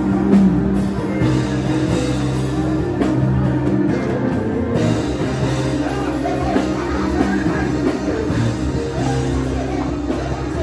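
Worship band music playing loud and steady, with held chords that change every second or two.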